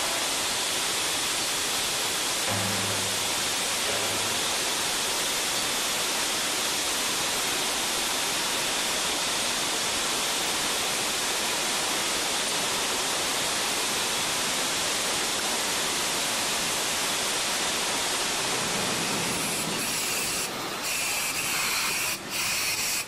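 Fire hose spraying water fog into a burning training engine room with a loud, steady rushing hiss. The sound changes and briefly drops out a few times near the end.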